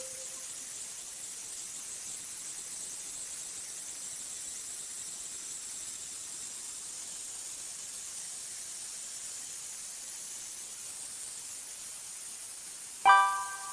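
Virtual-reality sound of a metallographic polisher wheel spinning, a steady hiss, while the specimen is held on the fine polishing wheel. Near the end a short pitched chime rings out and fades: the signal that the polishing phase is complete.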